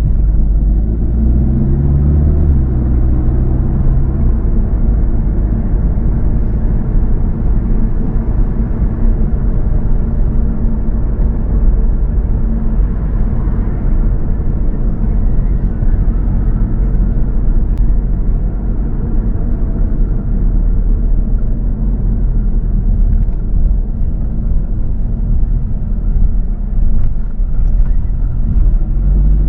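Car driving along a road: steady engine and tyre noise with a deep rumble, the engine pitch rising briefly as it speeds up about a second in and again near the end.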